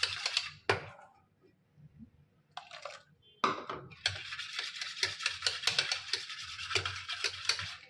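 A small wire whisk beating thin curd and chickpea-flour batter in a stainless steel bowl, its wires rapidly clicking and scraping against the steel. It stops about a second in, then after a short burst picks up again steadily about three and a half seconds in.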